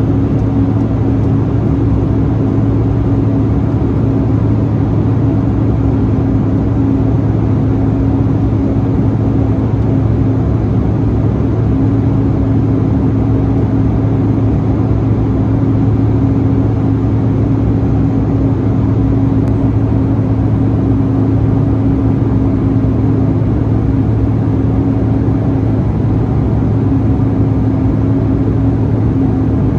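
Airliner cabin noise in cruise flight: a steady rush of airflow with an even, low engine hum and a second, slightly higher hum, unchanging.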